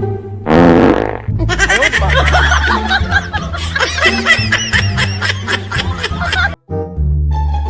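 A short fart sound effect about half a second in, followed by about five seconds of laughter that cuts off suddenly, over background music with a steady bass line.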